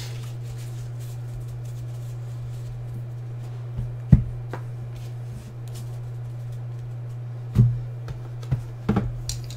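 Quiet background music over a steady low hum, broken by a few sharp knocks as trading-card boxes and packs are handled on a tabletop. The loudest knock comes about four seconds in and another near the end, followed by lighter taps.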